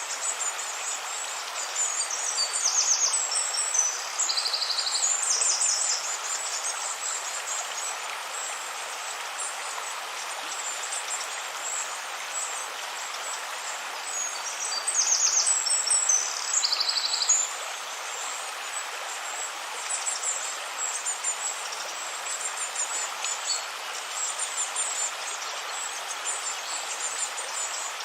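A forest river flowing with a steady rushing sound, while a songbird sings quick, high trilled phrases twice, about two seconds in and again about fifteen seconds in, with fainter chirps near the end.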